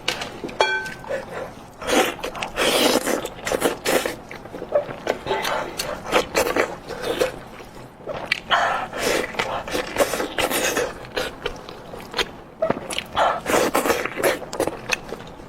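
Close-miked eating sounds: chewing and tearing meat from a spicy goat head, with wet smacks and scrapes coming in irregular bursts.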